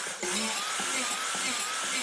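Power drill running steadily with a high, slightly wavering whine; it drops out briefly just after the start.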